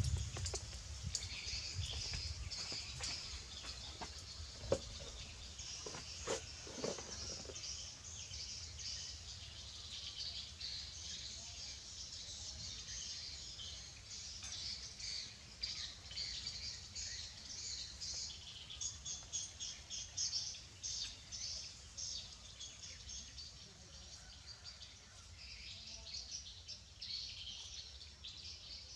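Small birds chirping and twittering, with a run of quick repeated chirps about halfway through and a single sharp tap about five seconds in.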